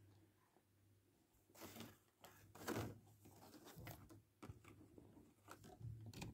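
Faint handling noises: a few short rustles and small clicks as die-cast toy cars and their clear plastic blister packaging are handled, the loudest rustle about three seconds in.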